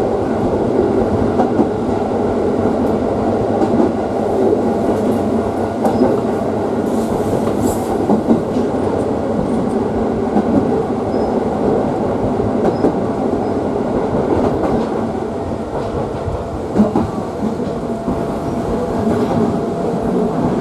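Electric commuter train running along the line, heard from inside the car: steady rolling noise of the wheels on the rails, with a faint steady whine.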